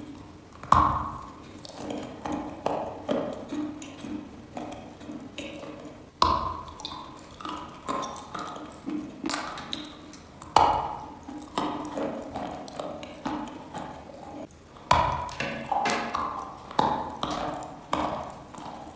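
Chalk being bitten and chewed, crunching close to the mouth. Four louder bites, the first about a second in and then every four to five seconds, each followed by a run of smaller crunches.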